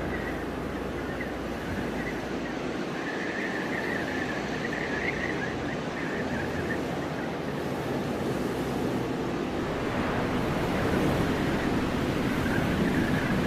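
Steady rushing wind of a snowstorm, with a faint wavering high tone from about three to six seconds in.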